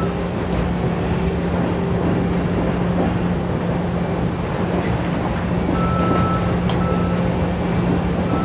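Heavy construction equipment's engine running steadily with a low hum, with a few faint knocks. About six seconds in, a backup alarm beeps twice.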